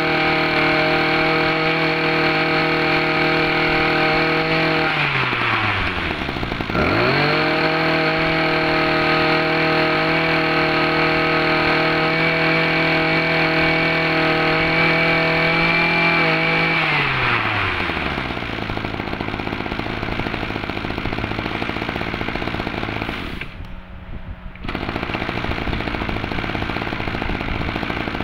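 Small two-stroke brush cutter engine, a 23cc Zenoah Komatsu unit under a Ryobi label, held at full throttle. It drops toward idle about five seconds in and revs straight back up, then is let down to a rougher idle after about sixteen seconds. The idle dips briefly near the end.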